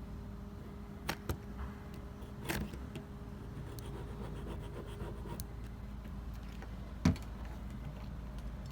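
A few short clicks and knocks of tools and parts being handled, over a steady low hum.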